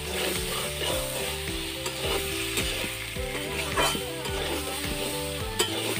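Wooden spatula stirring and scraping chunks of potato and pointed gourd around a metal karahi, with repeated scrapes and knocks against the pan over the hiss of the food frying.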